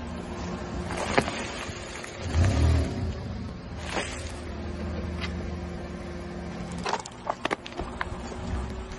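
A car's engine runs with a steady low hum while its tyre rolls slowly over wrapped snack bars, crushing them with a few sharp crackling snaps. A heavier low thump comes about two and a half seconds in.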